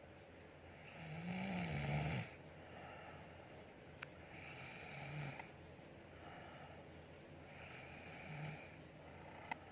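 Someone snoring in sleep: a run of rasping snores with a low buzz, one every second or two. The first, about a second in, is the loudest.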